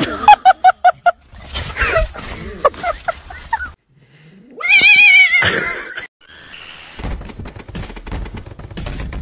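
A cat's loud, wavering yowl that rises in pitch at the start and lasts about a second, near the middle. Before it comes a quick run of about five short high-pitched calls, then gliding calls. After it come light rustling and clicks.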